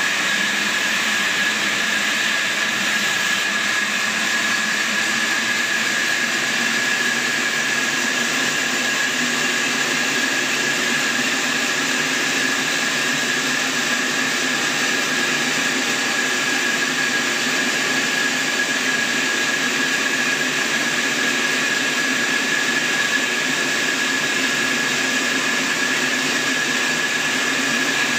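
Band sawmill running steadily while its band blade cuts through a large log: a continuous machine noise with a steady high whine held throughout.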